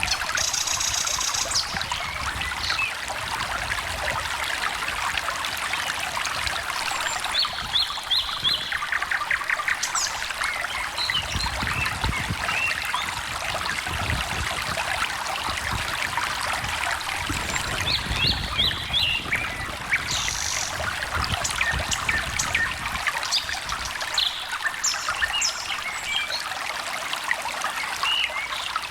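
A small stream trickling and babbling steadily, with birds chirping in short high phrases at intervals over it.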